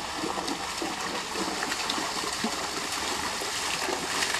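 Steady splashing and washing of shallow seawater.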